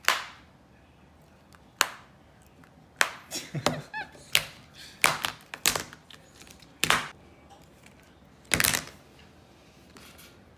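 A monkey banging a red flip phone against a granite countertop. The sharp, hard knocks come singly and in quick runs of several, a dozen or so in all.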